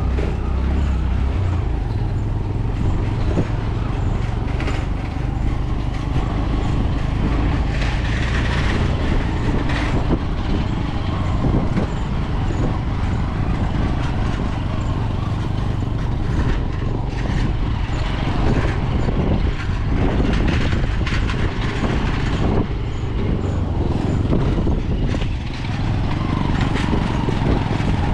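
A motor vehicle running steadily, a constant low engine and road rumble with scattered knocks and rattles.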